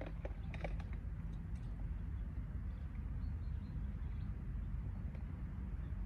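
Outdoor ambience: a steady low rumble, with a few short clicks about half a second in and faint high bird chirps.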